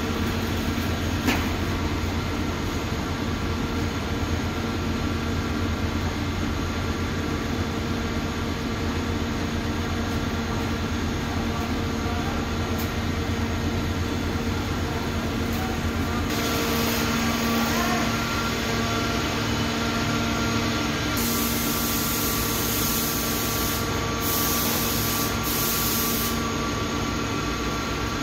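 Steady drone of a cotton rag-opening machine running, several steady hum tones over a rushing noise. About halfway through the sound shifts, and later a louder hiss comes and goes a few times.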